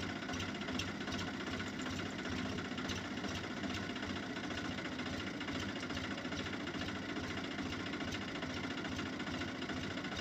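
Swaraj 963 FE tractor's diesel engine running steadily at idle, with an even, regular knock of its firing.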